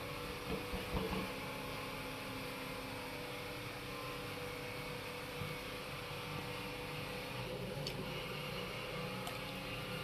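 Steady low mechanical hum, with a few faint soft bumps and rustles near the start from hands working chicken wings in a plate of dry flour.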